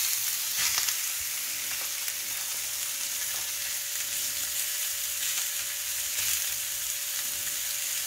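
Sous-vide-cooked steak searing in a hot ridged grill pan over a gas flame: steady sizzling with a few small crackles.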